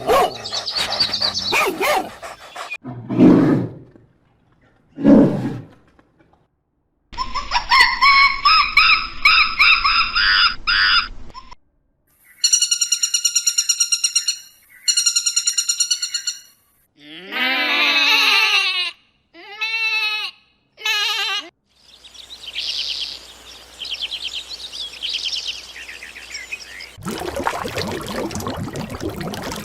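A string of different animal calls, one short clip after another, with sudden cuts between them. The run includes low calls, pitched calls, calls that slide up and down, and chirps.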